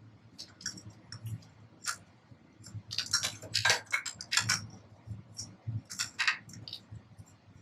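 Irregular metallic clicks and clinks from tools and metal parts being handled while a new oil filter is fitted and snugged up. The clicks are thickest in the middle.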